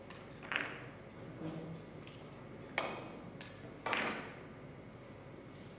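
Several sharp clicks of carom billiard balls during a three-cushion shot: the cue tip striking the cue ball and balls knocking together, the clearest click about three seconds in.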